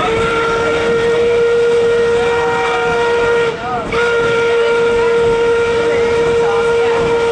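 Steam locomotive whistle, most likely K-27 2-8-2 #463's, blowing two long steady blasts with a short break between them.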